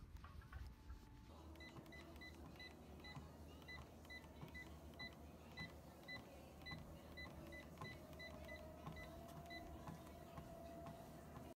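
Treadmill running, its console giving a string of about twenty short high beeps over some eight seconds, the sound of the speed buttons being pressed; near the end the motor's whine rises in pitch as the belt speeds up.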